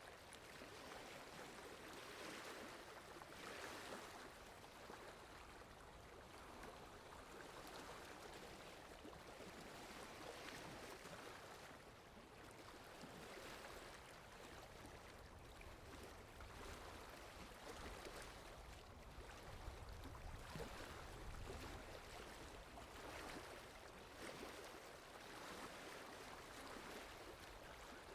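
Faint water lapping in soft, irregular swells every second or two, with wind adding a low rumble that grows stronger about midway.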